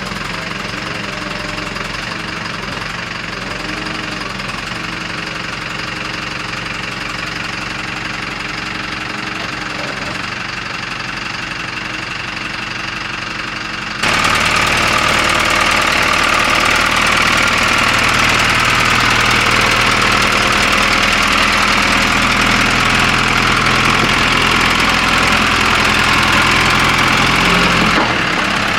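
Backhoe's diesel engine running steadily, with a sudden step up in loudness about halfway through.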